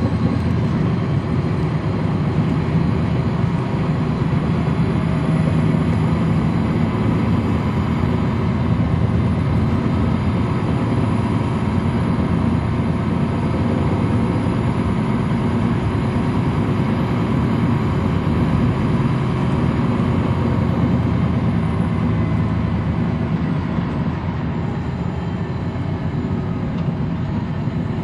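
Cummins ISL9 diesel engine of a NABI 40-foot transit bus running steadily, heard from the rear seats inside the bus, close to the rear-mounted engine.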